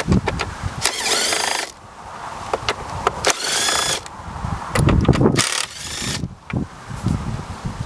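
A small cordless power tool whirring in three short runs, about a second in, past three seconds and near five and a half seconds, its pitch rising as each run spins up, with clunks of tools and parts in between.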